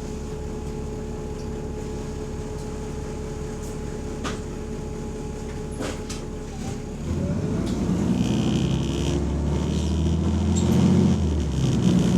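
Bus diesel engine idling with a steady, even pulse, then about seven seconds in it gets louder and rises in pitch as the bus pulls away under power. The bus has an exhaust leak that is loud from outside and muffled inside.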